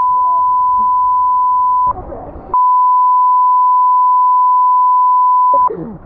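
Censor bleep: a steady, loud, high-pitched beep tone laid over the audio. It plays for about two seconds, breaks off for half a second while faint background sound comes through, then sounds again for about three seconds.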